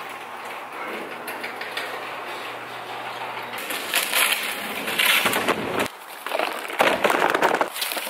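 Garage door rolling up with a steady motor hum that stops about three and a half seconds in. Then loud, irregular crinkling and rustling of plastic wrapping, with sharp knocks, as a plastic-wrapped kayak and boxes of gear are set down and handled.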